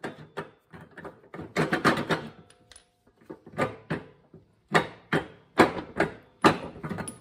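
Metal clunks and rattles from the center spindle and pulley of a Husqvarna YTH24V54's 54-inch mower deck as it is worked back and forth by hand: irregular knocks, a few a second, some ringing briefly. The spindle is broken and stuck.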